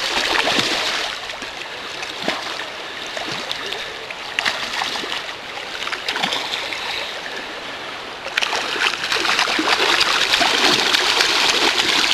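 River water flowing and splashing, with scattered small splashes; it grows louder about eight seconds in.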